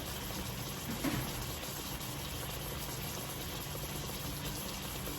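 Beef roast searing in oil in a hot skillet: a steady sizzle, with a faint low hum underneath.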